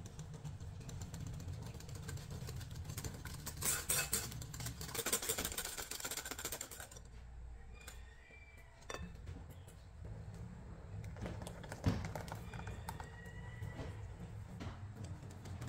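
Wire whisk beating eggs and sugar in a glass bowl, a rapid clatter of the wires against the glass that is loudest in the first half and fainter after about seven seconds, with one sharper knock near the end and a steady low hum underneath.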